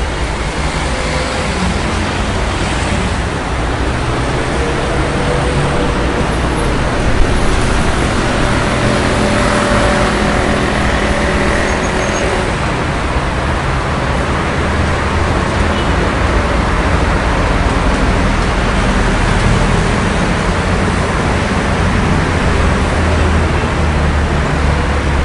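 Dense city street traffic: cars, buses and trucks running past in a steady, loud wash of engine and tyre noise, with a brief sharp knock about seven seconds in.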